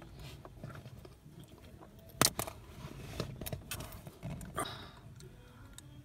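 Small plastic clicks and scrapes as a mini blade fuse is pulled from a car's fuse box, with one sharp click about two seconds in.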